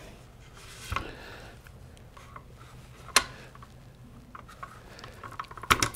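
Faint handling clicks of a Typhoon X12 semi-auto shotgun's charging handle being wiggled out of the upper receiver: a small click about a second in, a sharper one about three seconds in, and a quick cluster of clicks near the end.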